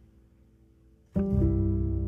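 Instrumental background music: a soft held tone, then a little over a second in a loud chord strikes and rings on, slowly fading.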